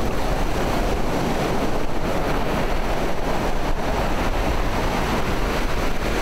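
Ocean surf breaking and washing over the shallows in a steady rush, with wind buffeting the microphone.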